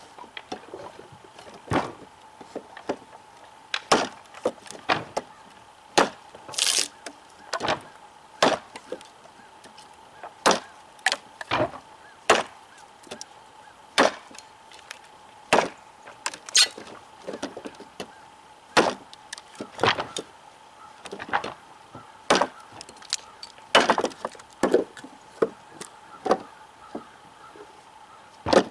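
Heavy chopping knife (cKc Voyager) chopping into a 2x4 board with light wrist-driven strokes: sharp woody chops about one a second, unevenly spaced, with chips splitting off.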